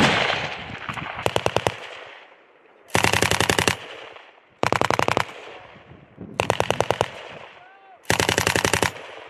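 Belt-fed machine gun firing short bursts of rapid shots. There are five bursts, each under a second long, about a second and a half apart.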